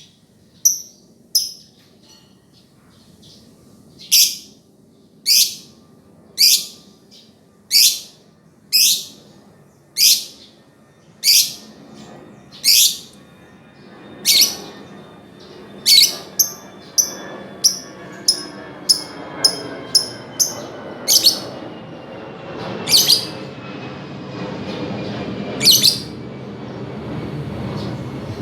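Lovebird chirping in a series of sharp, high, loud calls, about one a second, breaking into a quicker run of shorter chirps midway and a few strong calls near the end. A low background hum builds in the second half.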